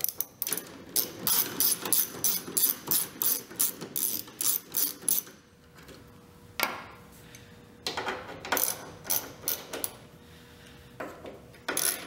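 Hand socket ratchet clicking as it backs out the tail-light housing screws, at about four clicks a second: one long run of several seconds, a pause, then a shorter run.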